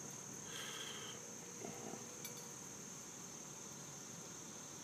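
Crickets chirring steadily in a high, even tone, with a brief faint call about half a second in.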